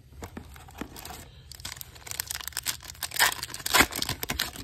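Foil wrapper of a MetaZoo Wilderness booster pack being crinkled and torn open: a run of crackling that builds about halfway through and is loudest near the end.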